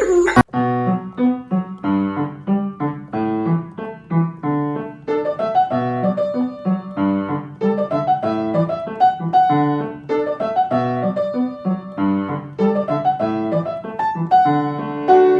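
Piano music: a lively tune of short, quickly struck notes over a lower accompaniment.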